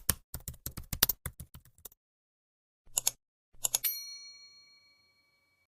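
Rapid keyboard-typing clicks for about two seconds, then a few more clicks, then a single bell ding that rings on and fades away.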